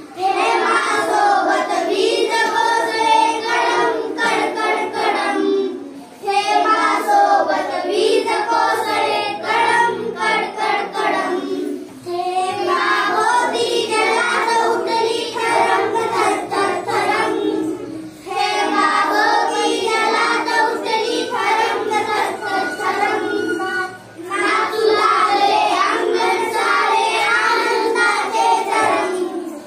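A group of young girls singing an action song together, in phrases of about six seconds with a short breath between each.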